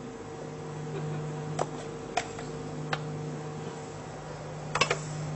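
A knife clicks lightly on a cutting board a few times, about once a second, then several quick taps near the end. A steady low hum runs underneath.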